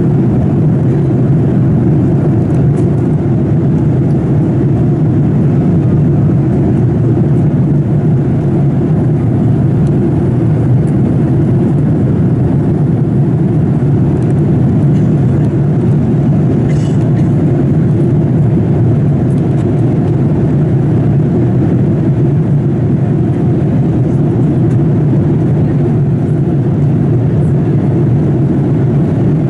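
Steady, loud cabin noise inside a Boeing 787-8 airliner in flight, a low drone of engines and rushing air with no change in level.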